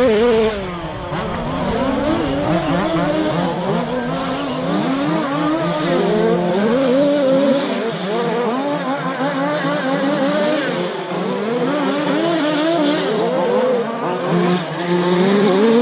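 Several radio-controlled short course trucks racing, their motors whining in overlapping tones that keep rising and falling in pitch as they accelerate and back off.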